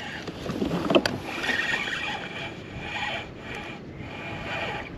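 Spinning reel being cranked as a hooked fish is reeled in to the boat, with a sharp click about a second in.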